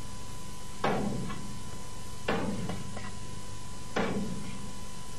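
Kitchen knife chopping chicken into pieces on a cutting board: three heavy chops about a second and a half apart, each with a smaller knock after it. A steady electrical hum with a thin high tone runs underneath.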